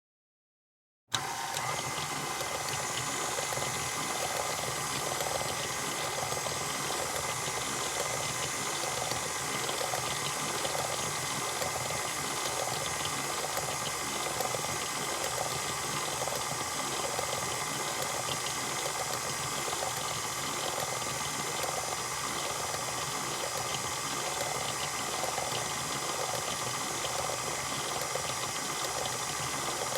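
Electric mixer switched on abruptly about a second in, then running steadily at one speed, its beaters stirring batter.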